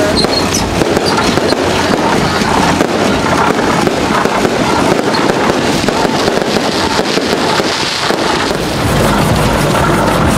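Fireworks going off: a loud, continuous crackle of rapid pops. A low rumble comes in near the end.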